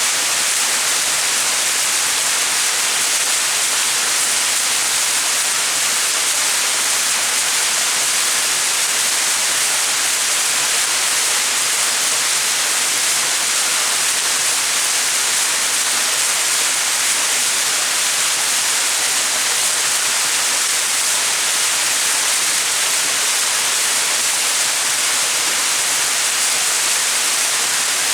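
Small mountain waterfall: water falling and splashing in a steady, unbroken hiss.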